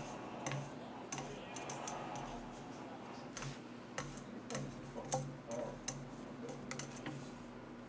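Irregular sharp clicks and taps, about a dozen scattered through, as a kitten's claws catch on a painted wooden banister spindle while it grips and bats at it.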